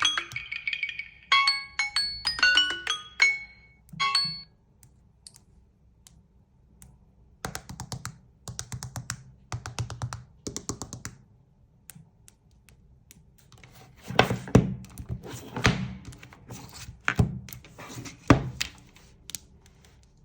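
Smartphone ringtone of bright, marimba-like chime notes for the first four seconds. It stops and gives way to a run of rapid clicks, then several heavy thuds near the end.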